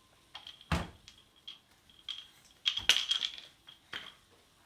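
Washing machine door being pushed against its frame: a thud just under a second in, then scattered clicks and a cluster of knocks and rattles around three seconds in. It does not latch because trousers are caught in the door.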